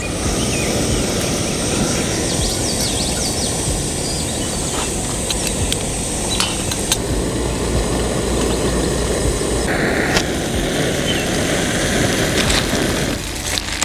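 Outdoor ambience: a steady rushing noise with small birds chirping high above it and a few faint clicks.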